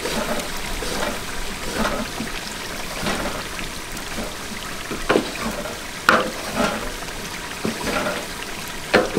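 Long wooden spoon stirring a thick, simmering curry base in a large steel pot, giving a steady wet sloshing with sharp scrapes and knocks of the spoon against the pot every second or so.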